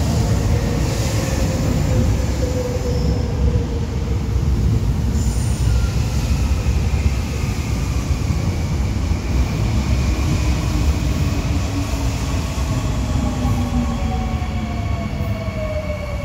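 Seoul Subway Line 3 electric train running slowly past at close range: a steady heavy rumble of wheels on rail, with the electric motor whine gliding down in pitch several times.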